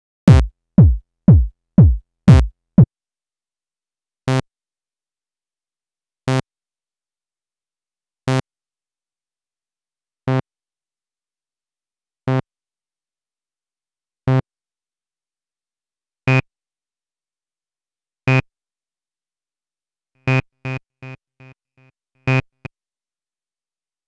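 KORG iMS-20 analog-modelled synthesizer app playing short synth blips as its patch is shaped into a water-drop sound effect. It opens with a quick run of six notes that each drop sharply in pitch, then plays one short note every two seconds. Near the end a note trails off in quickly fading repeats.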